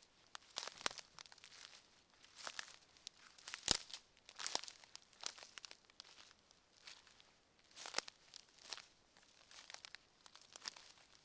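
Footsteps crunching and crackling on a forest floor, roughly one step a second, with one louder, sharper crack a little under four seconds in.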